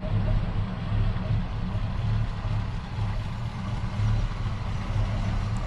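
1950 Ford F2 pickup's flathead V8 idling steadily.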